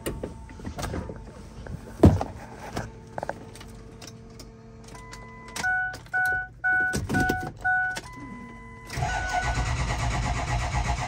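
A few clicks and knocks, then a dashboard chime beeps five times, and about nine seconds in the starter begins cranking the 6.0 Powerstroke V8 diesel in a steady rhythmic churn without it firing, on a weak battery.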